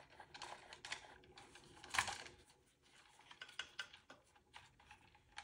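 Faint handling clicks and light taps of a wooden large-format camera back with brass fittings being moved in the hands, with one sharper knock about two seconds in.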